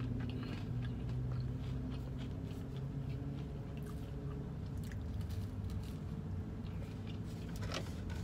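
Close-up chewing and biting of crispy fried chicken and a biscuit: small wet clicks and crunches scattered through, with a bite near the end, over a steady low hum.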